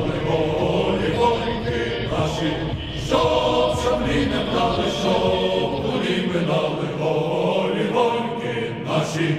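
Choral chant music: a choir singing long held phrases that break off and start again every few seconds.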